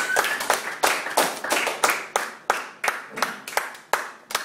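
A small audience clapping, the separate claps clearly distinct, thinning out and getting quieter toward the end.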